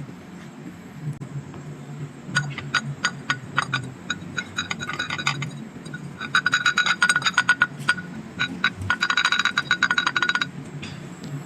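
Bursts of rapid metallic clicking, densest in two runs in the second half, over a low steady hum.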